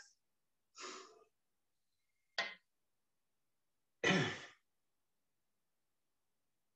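A man's sigh about four seconds in, after a faint breath about a second in and a short sharp click in between; the rest is silence.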